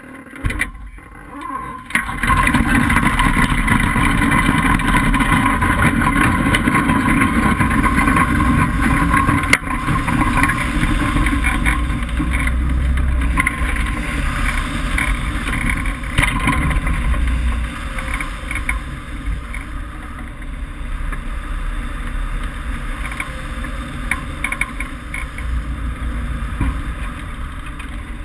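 Wind rushing over a hang glider and its wing-mounted camera as the glider is towed off the ground and climbs. It starts suddenly about two seconds in as a loud, steady rush with a deep rumble, and eases a little in the second half.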